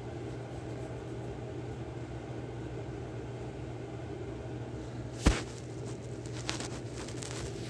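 Steady low hum, with one sharp click about five seconds in and a few soft crackles near the end.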